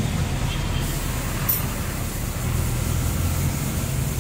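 A motor vehicle engine running steadily, a low rumble, with one faint click about a second and a half in.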